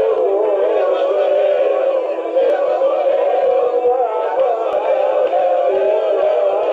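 Music with male voices singing, thin-sounding with no bass, as if played back through a small speaker.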